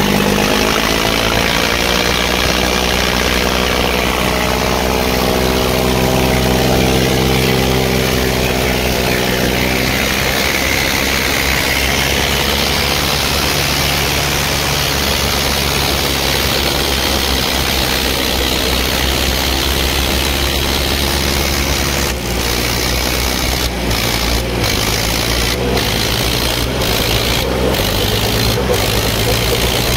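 Tractor diesel engine running steadily and loudly, its note holding for the first ten seconds or so and then giving way to a rougher, noisier sound over a steady low drone.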